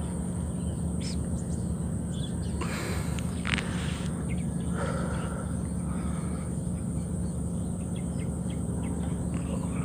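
Outdoor field ambience: scattered short bird chirps and insects over a steady low hum, with a brief rustle about three seconds in.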